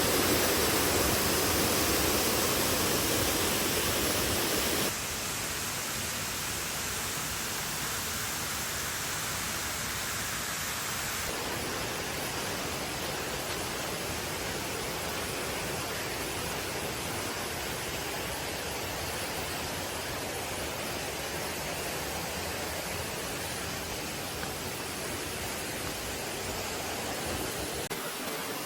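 Waterfall: steady rushing of falling water, louder for about the first five seconds, then softer.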